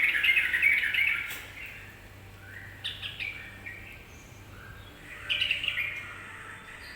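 Yellow-vented bulbul (trucukan) singing: a fast, continuous bubbly run of notes that ends about a second in, then scattered quieter notes and short bursts of song about three and five seconds in.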